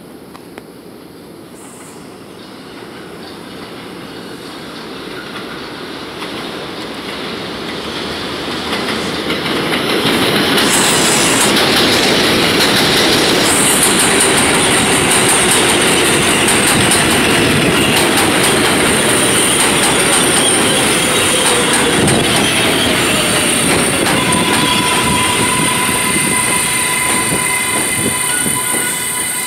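R188 subway train arriving on elevated track, growing steadily louder as it approaches, wheels clattering over the rails. A high-pitched wheel squeal sets in about halfway through and holds, while a whine falls in pitch as the train slows to a stop.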